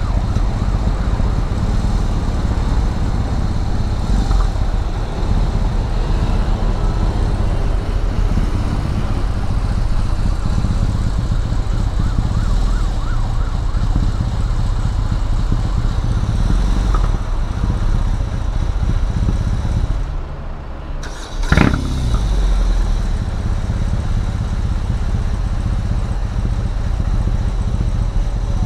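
BMW R18's 1,800 cc boxer-twin engine idling steadily, its sound likened to a ship's engine. A sudden sharp noise comes about three quarters of the way through.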